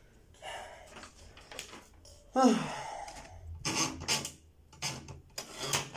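Short breathy vocal sounds and heavy exhales, with a louder one about two and a half seconds in that slides down in pitch, like a sigh.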